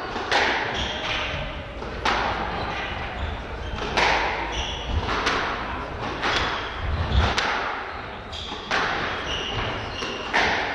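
Squash rally: the ball cracks off the rackets and walls every one to two seconds, each strike echoing around the court, with short squeaks of court shoes on the wooden floor between shots.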